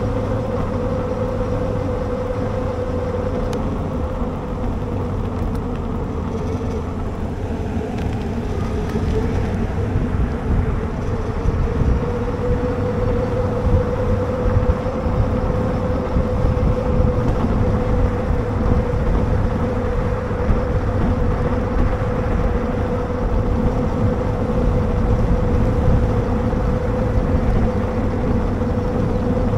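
Riding noise from a Lectric XP Lite e-bike: a steady whine from its rear hub motor over a low rumble of wind on the microphone and tyres on the pavement.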